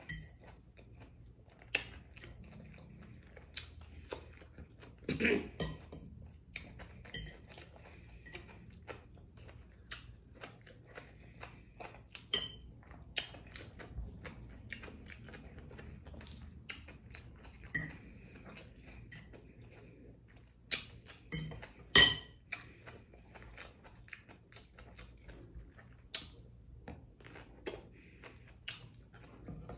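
Close-up eating sounds: chewing fried fish, with a fork clinking and scraping on a plate. Sharp clicks come every second or so, the loudest about five seconds in and again about twenty-two seconds in.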